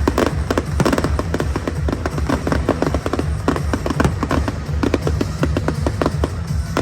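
Fireworks going off in rapid succession, a dense run of bangs and crackles, over loud show music with a heavy bass.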